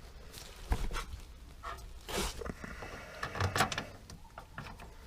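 Hands working metal parts of an RV step gear and linkage assembly: scattered clinks, knocks and short scrapes, the loudest around two seconds in.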